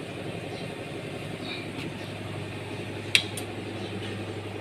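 Tractor engine idling steadily, with a sharp click a little after three seconds in and a fainter one right after.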